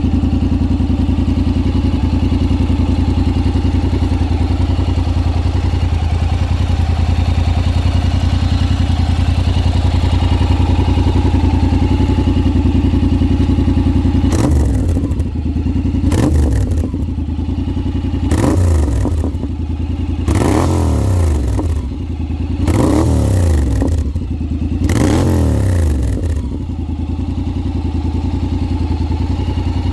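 Honda X-ADV 750's parallel-twin engine running through an Akrapovic full-system exhaust without its carbon fibre tips: a steady idle for about half the time, then about six quick throttle blips, each rising and falling in pitch, before settling back to idle.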